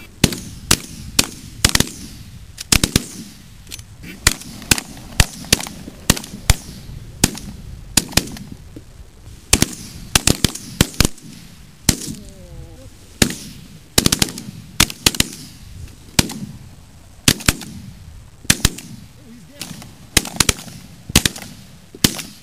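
Rapid, irregular shotgun fire from several guns: dozens of sharp reports at about two a second, each trailing off, as a flock of ducks is shot at. A brief wavering call, from a duck or a duck call, sounds about halfway through.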